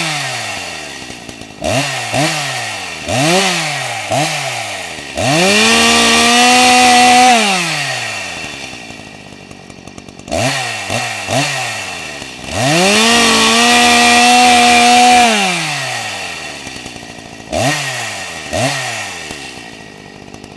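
Chainsaw engine revving with no cutting. Short throttle blips alternate with two long full-throttle revs held for about two seconds, each winding back down to idle.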